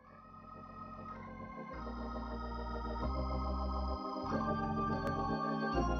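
Organ music fading in: sustained chords over held bass notes that change every second or so.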